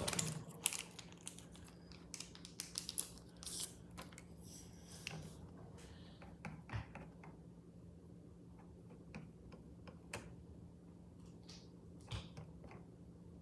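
Scattered small clicks and taps of makeup items being handled and picked through, busiest in the first few seconds and sparser after, over a faint steady low hum.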